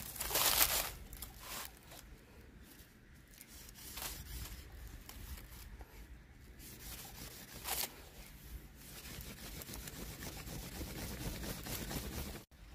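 Dry bamboo leaves and wooden sticks rustling and scraping as they are handled and a split stick is worked by hand, loudest in the first second, with a few short sharp cracks of wood.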